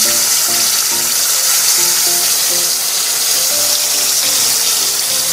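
Frozen gyoza deep-frying in a pot of hot oil: a steady, loud hissing sizzle, with the oil spitting because of the water in the frozen gyoza. Light background music plays underneath.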